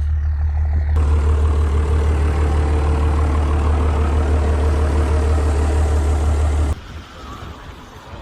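A vehicle engine running with a steady low rumble; about a second in a loud hiss joins it. Both cut off suddenly near the end, leaving a much quieter background.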